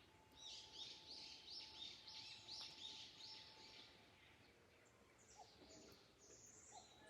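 A wild bird calling: a run of about eight repeated high notes over some three seconds, then a few scattered calls from other birds, faint over quiet forest ambience.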